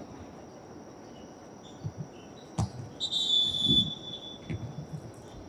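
Distant play in a small-sided football game: a sharp ball kick about two and a half seconds in, then a shrill high tone lasting about a second, with scattered soft thuds from the players.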